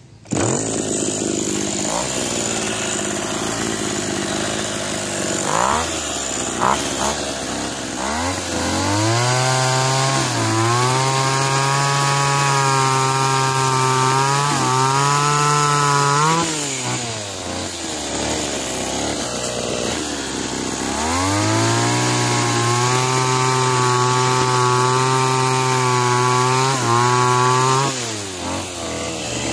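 Small brush-cutter engine converted into a mini chainsaw, running and twice revved up to high speed. Each time it is held there for several seconds, its pitch sagging and recovering, before dropping back.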